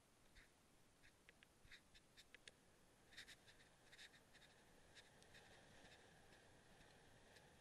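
Near silence, with faint, irregular clicks and scratches scattered through it and a faint steady hiss later on.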